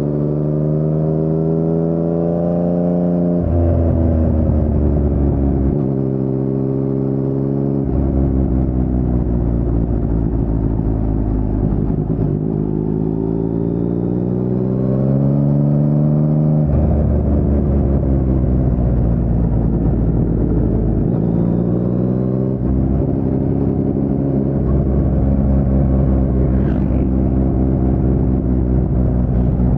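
2019 Yamaha MT-09's 847 cc inline-three engine through an Akrapovic carbon full-system exhaust with no dB killer, pulling and easing off through a run of bends. The engine note rises and falls, with sudden drops in pitch at the gear changes.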